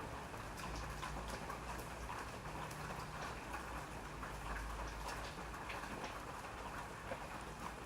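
Steady rain with many individual drops ticking on a hard surface, over a low rumble.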